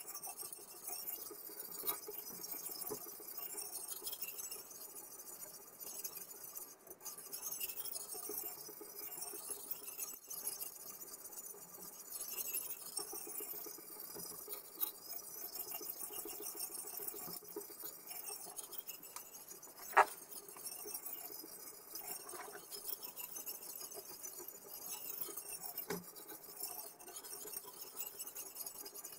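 Steel chef knife being worked on a guided sharpening system: light scraping with small clinks, and one sharp click about twenty seconds in.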